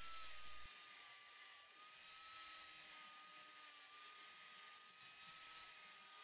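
Contractor-style table saw running faintly while a sheet of MDF is fed through it: a thin, steady whine over a soft hiss.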